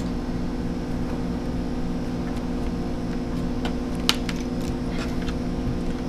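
Steady background hum, with a few faint clicks and one sharper click about four seconds in as the plastic palm rest of a Dell Inspiron N4010 laptop is pried and unsnapped from its base with a screwdriver.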